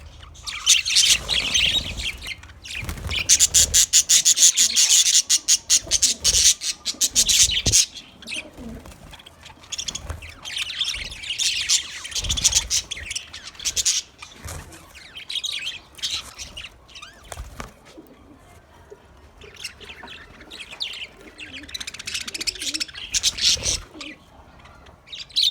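Budgerigars chirping and chattering in bouts of rapid, high chirps, with quieter gaps between the bouts.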